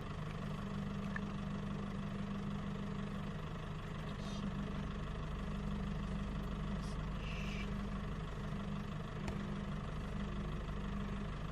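Vehicle engine idling steadily, a constant low drone.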